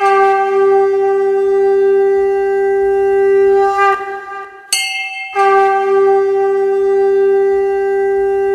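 Two long blasts on a wind instrument, each held at one steady pitch. The first breaks off about four seconds in and the second begins about a second later, with a brief higher tone in the gap between them.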